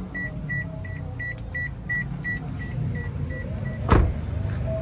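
Toyota Calya's door-open warning chime beeping about three times a second, stopping as the door is shut with a single thud about four seconds in.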